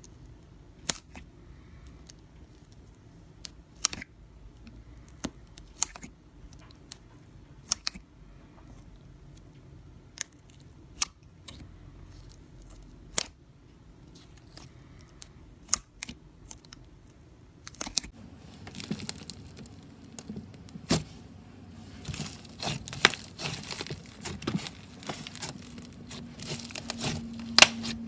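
Slime being handled with the hands: sharp, separate pops and clicks about once a second, then about two-thirds of the way through a denser run of crackling and crinkling.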